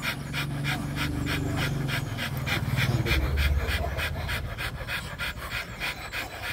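Two Rottweilers panting fast and steadily, about five breaths a second, while held together for mating. A low rumble sits under the panting through the first four seconds, loudest about three seconds in.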